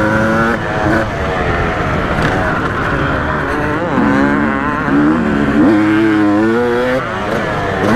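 Yamaha YZ250 single-cylinder two-stroke dirt bike engine revving hard and easing off, its pitch climbing and dropping again and again as the rider shifts and works the throttle around the track.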